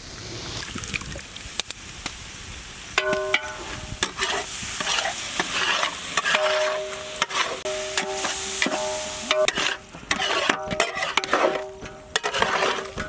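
A ladle stirring and scraping mutton keema as it sizzles in ghee in a large pot, with the yogurt just added being mixed in. Sharp scrapes and knocks come throughout, and from about three seconds in a steady ringing tone comes and goes with the strokes.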